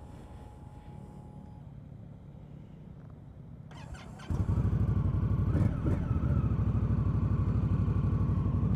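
Indian Scout's V-twin engine being started: a short starter crank just under four seconds in, then the engine catches and settles into a steady idle, with a brief rise in revs about a second later. A faint low rumble comes before it.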